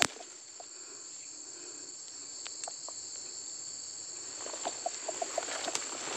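Steady high-pitched insect chorus, a continuous drone of crickets. A little over four and a half seconds in, a short run of soft, quick notes sounds over it.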